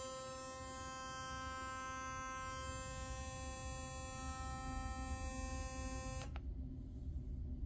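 Philips Sonicare electric toothbrush running with a steady, high, rattly buzz, then switching off abruptly about six seconds in. The rattle is the sign of the fault where the brush head has come loose.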